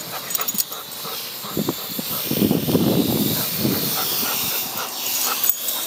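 Parrot AR Drone quadcopter's rotors running, a steady high hiss, with a stretch of louder, lower rushing between about two and four seconds in.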